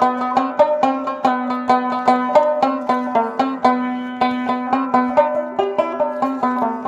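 Background instrumental music: a plucked string instrument playing quick runs of notes over a steady held low note.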